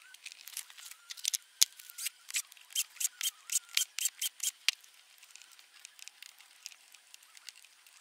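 A quick run of short, crisp scraping or clicking strokes, about two or three a second, that dies down to faint ones after about five seconds. The sound is thin, with no low end.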